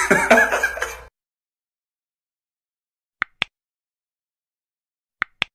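About a second of loud, mixed noise from the end of the previous clip, which cuts off suddenly. After a pause of dead silence come two quick double clicks, mouse-click sound effects of a subscribe-button animation, about two seconds apart.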